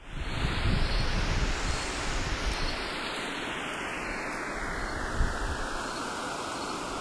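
Filtered noise sweep used as an intro effect: a whoosh that starts abruptly, brightens over about the first two seconds, then slowly darkens to a dull rush.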